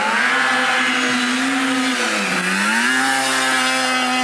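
500cc snowmobile engine in a stand-up scooter running hard under way, holding high revs; the pitch dips briefly about two seconds in, then climbs back up.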